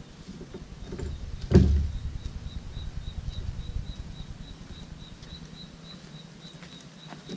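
A sharp knock about one and a half seconds in, over low handling and wind rumble. A faint, even run of short high peeps, about three a second, lasts through most of the rest.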